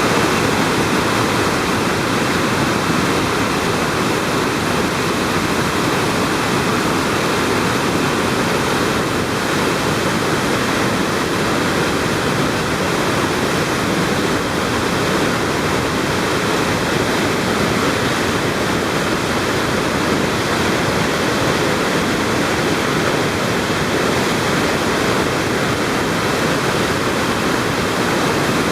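Large waterfall pouring: a loud, steady rush of falling water that does not change.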